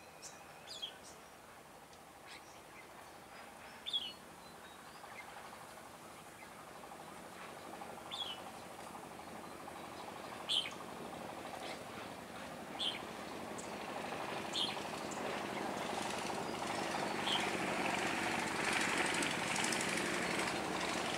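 Red-whiskered bulbuls giving short, sharp calls every couple of seconds, about eight in all. Under them a mechanical rattling noise grows steadily louder through the second half.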